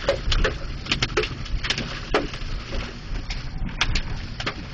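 Hailstones striking a car's body and glass: irregular sharp knocks several times a second over a steady rumble of wind and rain, heard from inside the car.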